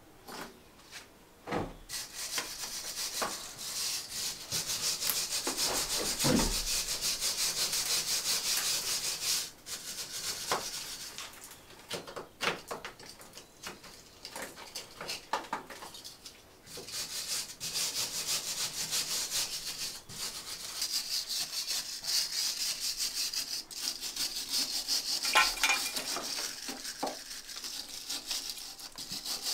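A hand trowel scraping rapidly against a stone wall in long runs of quick strokes, with scattered knocks of stone in between.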